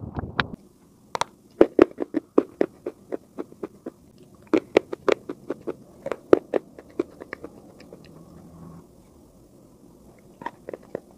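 Close-miked crunching of white school chalk being bitten and chewed: a quick run of sharp, crisp crunches that thins out in the second half, with a few more bites near the end.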